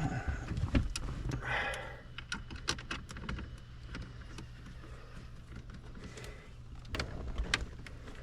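Scattered clicks and taps of plastic dashboard trim being handled and pressed into place, with a brief scrape about a second and a half in, over a steady low hum.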